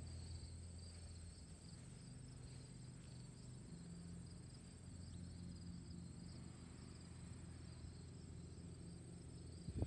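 Faint outdoor ambience: a steady, high-pitched insect chorus over a low hum, with a short bump right at the end.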